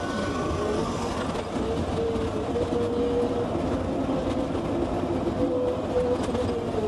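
Heavy earth-moving machinery running: a steady engine rumble with clattering and a whine that wavers and shifts in pitch.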